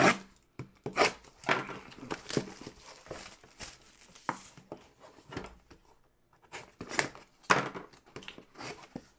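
Plastic wrapping crinkling and tearing in irregular bursts, with scattered small clicks and knocks, as a box of trading cards is unwrapped and handled.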